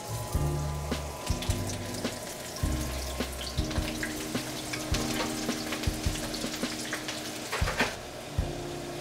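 Thin yuca slices frying in shallow hot oil in a wok: a steady sizzle dotted with small pops and crackles, louder for a moment near the end. Background music plays underneath.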